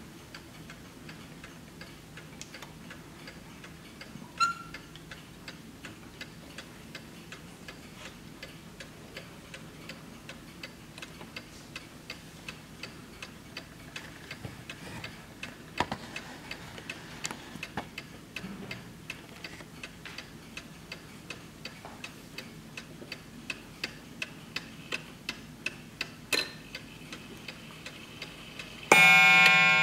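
Antique Kienzle mantel clock movement ticking steadily, with a few louder knocks along the way. About a second before the end, the hammer strikes the coiled wire gong once, loudly, and the gong keeps ringing.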